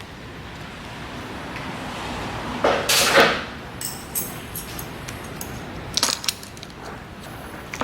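A fitting being worked off a motorcycle handlebar by hand: a loud scraping slide about three seconds in, then light clicks and knocks of the loosened part.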